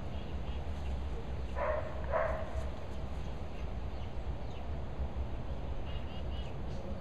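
Two short, harsh animal calls about half a second apart, about two seconds in, over a steady low outdoor rumble. Faint high chirps come near the start and again near the end.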